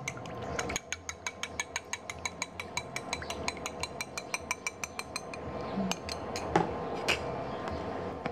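Spoon clinking rapidly and evenly against a dish, about six strikes a second, as cornflour is stirred in. The clinking stops about five seconds in, leaving a few scattered knocks.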